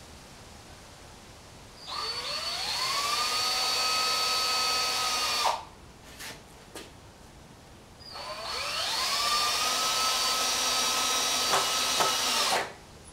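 Power drill driving screws into 2x4 boards in two runs of about four seconds each, the motor rising in pitch as it spins up and then running steady, with a few short clicks between the runs and as the second one stops.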